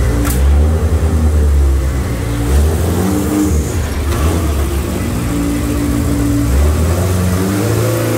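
Turbocharged engine of a heavily tuned Mitsubishi Lancer race car running at idle, its pitch wavering slightly up and down.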